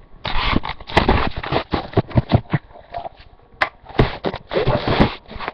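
Irregular knocks, thumps and rustling: handling noise from the recording device being moved about.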